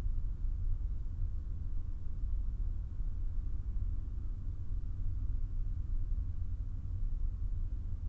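Steady low rumble with a faint hiss over it, unchanging and without separate events.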